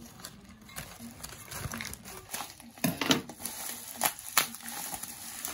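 Newspaper and plastic bubble wrap crinkling and rustling as hands unwrap ceramic dishes, with a few louder sharp crackles around three and four seconds in.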